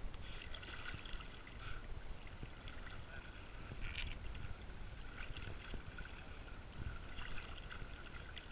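Shallow salt water sloshing and splashing around legs wading through it, with a low rumble of wind on the microphone and a brief sharper splash about four seconds in.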